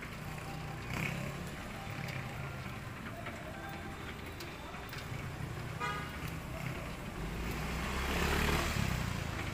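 Street traffic: motor-vehicle engines running low and steady in a narrow city street, with a short rattle about six seconds in. Near the end a vehicle passes close and grows louder.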